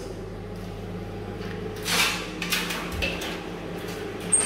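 A steady low hum with a few light knocks and rustles, about two seconds in and again around three seconds.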